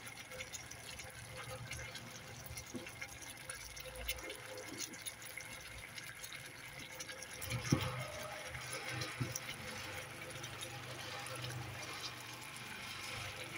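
Thick coconut-milk adobo sauce bubbling and popping as it simmers in a pan, with a single soft thump a little past halfway.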